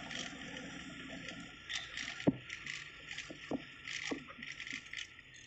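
Steady outdoor background noise on a small microphone, with a few sharp knocks about two, three and a half, and four seconds in.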